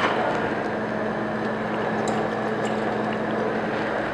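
Steady hiss and bubbling of a covered pot of rice boiling on a gas stove, over a steady low hum.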